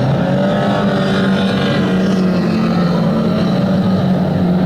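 Engines of 2-litre banger stock cars running at racing speed around an oval track, a steady drone whose pitch wavers slightly.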